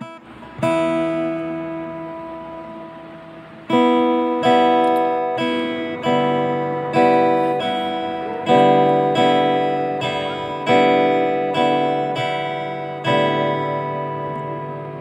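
Background music of a guitar strumming slow chords. The first chord rings for about three seconds, then chords come roughly once a second, each fading before the next.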